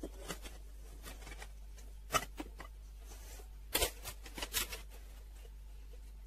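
Dry baking ingredients tipped into a stainless-steel stand-mixer bowl, with a paper baking-soda packet rustling and crinkling. The sounds come as a few short, sharp clicks and rustles, loudest in a cluster a little past halfway, over a steady low hum.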